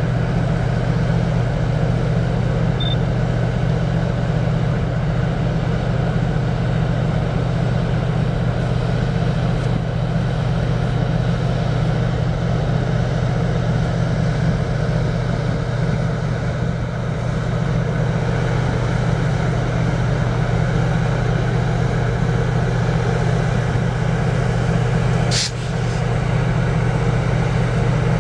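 Steady low engine drone that holds unchanged throughout, with a brief click and a short dip in level about 25 seconds in.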